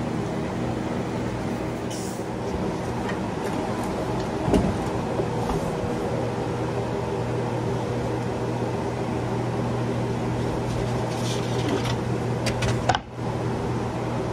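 A steady mechanical hum, with a single knock about four and a half seconds in and a sharp click near the end, where the hum briefly drops out.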